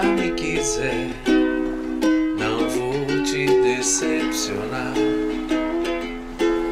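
Background music: a small plucked string instrument strumming chords, with fresh strums about once a second over a lower bass line.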